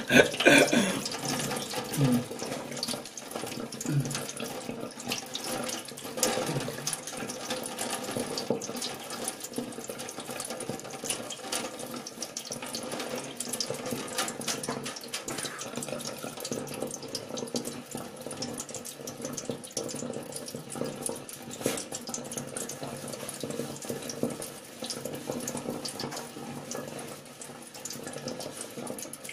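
Water running steadily from a tap into a stainless-steel sink.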